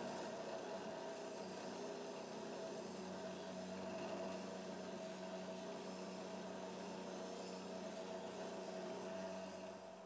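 Bench grinder running with a wire brush wheel, scrubbing rust off a round sheet-metal fan part pressed against it: a steady motor hum with a scratchy rasp.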